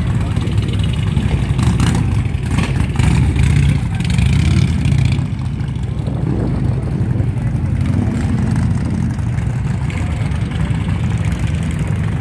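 Several motorcycle engines running with a deep, steady rumble, getting louder for a stretch about three to five seconds in as bikes ride past.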